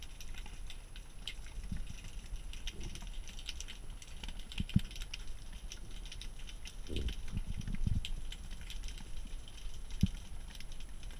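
Underwater ambience heard through an action camera's housing: a constant fine crackle of clicks over a low rumble, with a few dull low thumps, a cluster of them about seven seconds in.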